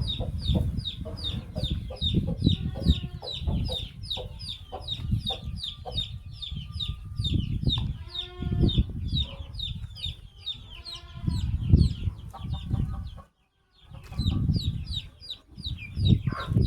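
A baby chick peeping constantly, short high falling peeps about four or five a second, over low rumbling and thumping. A lower, drawn-out call comes twice in the middle, and the sound drops out briefly about two-thirds of the way through.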